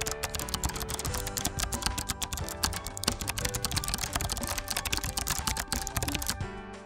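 Rapid typing clicks, keystroke after keystroke, over background music with sustained tones; the typing stops shortly before the end.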